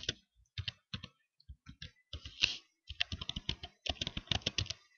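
Typing on a computer keyboard: irregular runs of key clicks with short pauses, the fastest run in the last two seconds.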